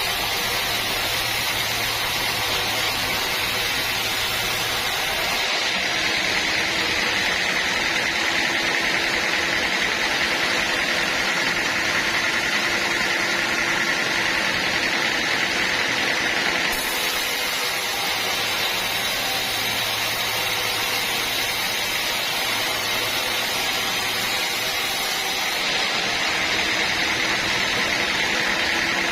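Band sawmill running steadily, a continuous machine noise whose character changes abruptly three times.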